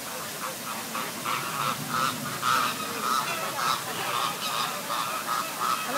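A flock of birds honking, many short calls in quick succession, starting about a second in.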